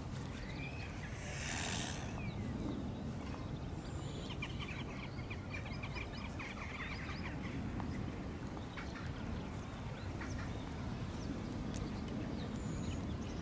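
Mute swan preening close up: a rustle of feathers, then a run of quick nibbling clicks as its bill works through the plumage. All of it sits over a steady low rumble.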